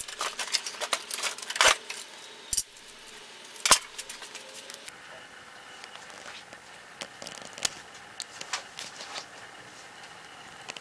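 Steel C-clamps being handled and tightened on a glued-up block of pallet wood: their sliding T-bar handles clink and rattle, with a few sharper knocks in the first few seconds. Then only faint scattered clicks.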